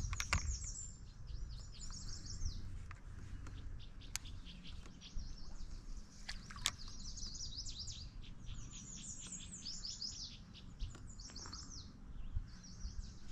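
Songbirds singing: repeated short phrases of quick, high, descending chirps, with a few sharp clicks in between.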